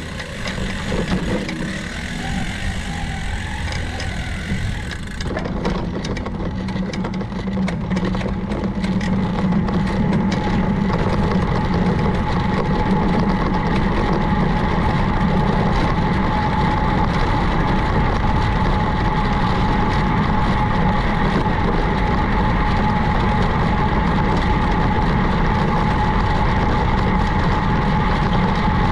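Steady road noise while riding a bicycle along a road, with a constant whine that comes in a few seconds in and holds steady.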